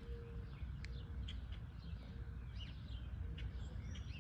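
Wild birds chirping in the background, short calls scattered throughout. A faint low note repeats several times beneath them, over a steady low rumble.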